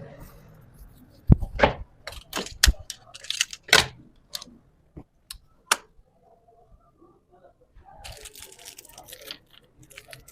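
A series of sharp knocks and clicks, about a dozen over four seconds, then after a short pause a rustling, scraping noise near the end.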